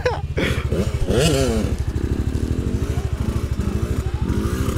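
Suzuki RM85 two-stroke dirt bike engine revving up and down as it rides in circles, over the steady low beat of another dirt bike idling close by.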